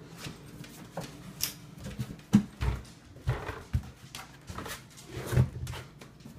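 Excited Labrador retriever puppy moving about, with a few brief vocal sounds from the dog among scattered knocks and bumps; the loudest come about two and a half and five and a half seconds in.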